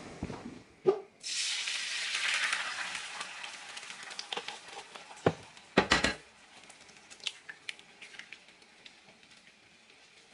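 Egg whites poured into a hot oiled pan on a gas stove start sizzling about a second in, a loud hiss that slowly fades to a faint sizzle. Sharp taps around six seconds in come as an egg is cracked and added to the pan.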